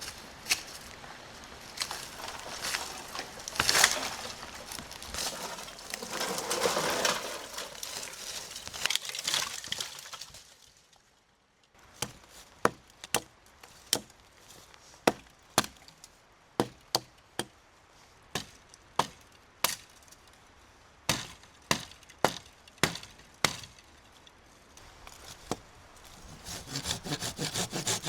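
Firewood being handled and worked: rustling and knocking of wood pieces, then a run of sharp wooden knocks about one or two a second after a brief pause. Near the end, a saw starts cutting through wood.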